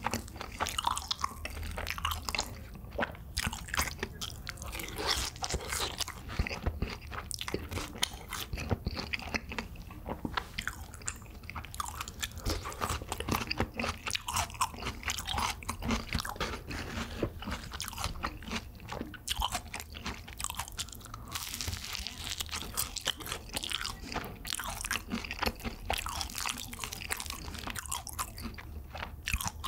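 Close-up crunching and chewing of crispy BHC Bburinkle fried chicken, bite after bite, a dense run of crisp crackles from the seasoned coating breaking in the mouth.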